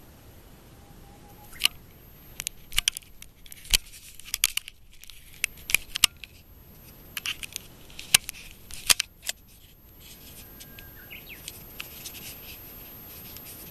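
Irregular sharp clicks and snaps, a dozen or more clustered between about one and a half and nine and a half seconds in, over a faint steady hiss.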